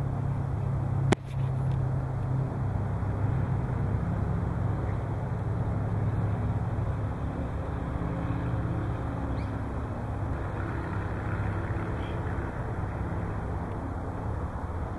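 Stainless steel stockpot at a hard rolling boil on a solar dish cooker, boiling over under its lid: a steady low rumble of boiling water. A single sharp click about a second in.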